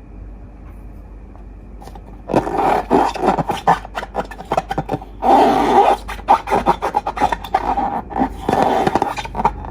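Slime being squeezed and worked by hand, with sticky crackling and popping that starts about two seconds in and thickens briefly in the middle.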